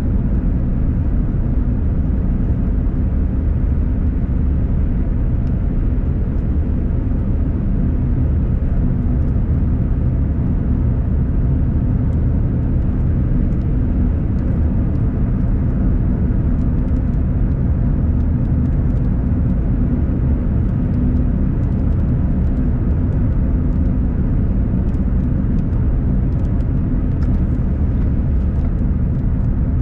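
Steady low rumble of a car driving on a wet road, heard from inside the cabin: tyre and engine noise. In the second half, faint scattered ticks are heard, likely raindrops striking the windshield.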